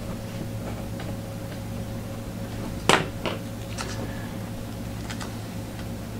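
A few light clicks and taps over a steady low hum. The sharpest click comes about three seconds in, and fainter ticks follow over the next two seconds.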